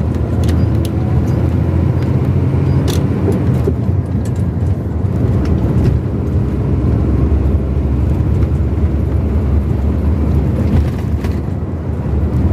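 A vehicle driving along a highway: a steady low rumble of engine and road noise, with a few brief sharp clicks, the loudest about three seconds in.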